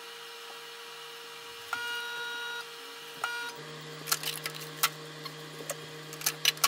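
A long electronic beep and then a short one, followed by a run of sharp clicks and knocks, over a steady electrical hum.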